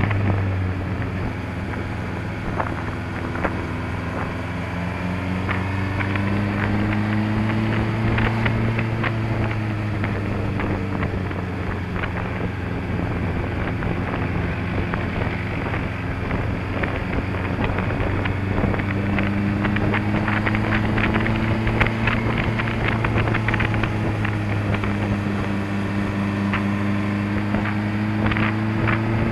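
Honda CBF600S motorcycle's inline-four engine running at a cruise, its pitch rising and falling a little with the throttle, under wind buffeting on the microphone.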